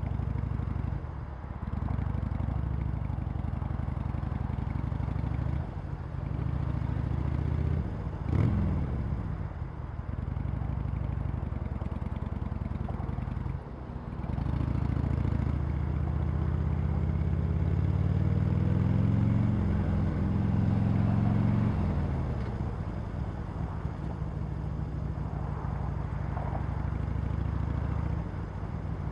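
Harley-Davidson Sportster Iron 883's air-cooled V-twin through its stock exhaust, engine speed falling and rising with short breaks in the first half and a quick blip of revs. About halfway it makes a long rising pull, then drops back and runs steadily.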